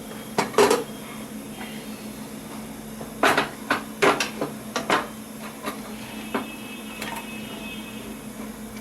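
Metal knocks and clicks of a pressure cooker being opened: the whistle weight and lid clanking against the aluminium pot, a couple of sharp knocks, then a quick cluster of them a few seconds in.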